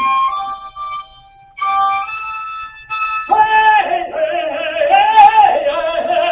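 Solo instrumental melody: a few held notes with a brief pause, then from about three seconds in a louder line with strong vibrato and wavering pitch.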